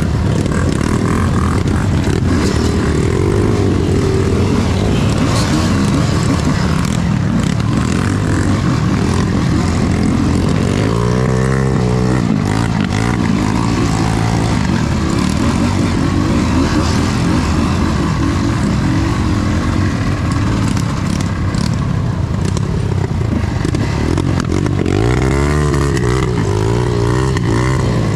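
Off-road dirt bike engine running on a hard enduro trail, its revs swinging up and down with the throttle, with two clear rising sweeps near the middle and near the end.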